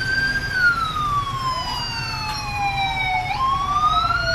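Police car sirens wailing, the pitch slowly rising and then slowly falling before jumping back up about three seconds in, with a second siren overlapping on its own sweep.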